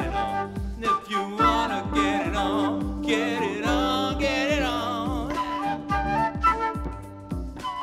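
Background music: a steady low beat about twice a second under a melody whose lead line wavers in pitch.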